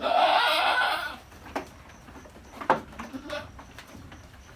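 A goat bleats once, loudly, for about a second. Then come a few scattered knocks and clicks, a sharp one near the middle.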